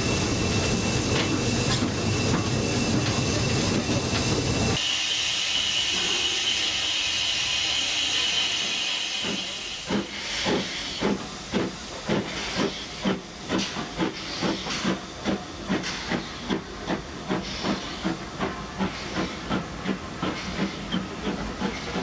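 Steam locomotive, the Ivatt Class 2 tank engine No. 41313, hissing steadily; the sound changes abruptly about five seconds in to a higher steam hiss, and from about ten seconds in the engine's exhaust chuffs as it pulls away with its train, about two to three beats a second.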